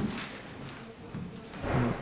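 Scattered footsteps and light knocks on a stage floor as dancers move into place, with a louder low thump near the end.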